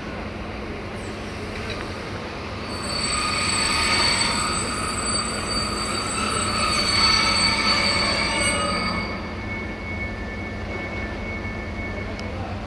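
Steel wheels of passenger coaches squealing against the rails as the train rolls away, a high, thin, ringing screech over a low rumble. The squeal starts a couple of seconds in, swells twice, then fades to a single faint tone near the end.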